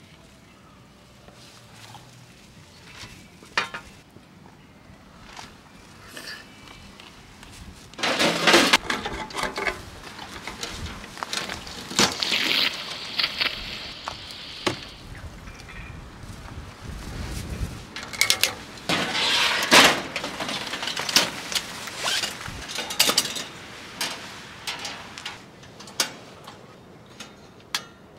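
Camp cookware and utensils clinking and clattering in irregular knocks, with a few louder, busier stretches of handling noise.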